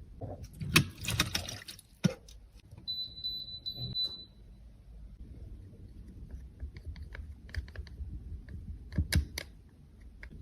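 Small clicks, taps and rustling from cosmetics and their containers being handled, busiest in the first two seconds and with a louder pair of clicks near the end. A brief high steady tone sounds about three seconds in.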